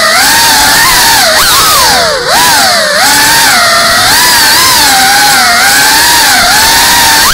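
GEPRC Cinelog 35 3.5-inch ducted cinewhoop quadcopter's brushless motors and propellers whining in flight. The pitch rises and falls with the throttle, with a few quick drops and climbs back as the pilot manoeuvres.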